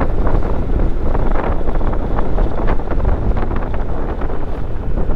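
Wind buffeting the microphone of a camera on a moving motorcycle: a steady, loud low rumble with irregular gusty flutters on top.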